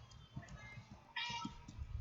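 One short, high-pitched call, about a third of a second long, a little past the middle, with faint low knocks around it.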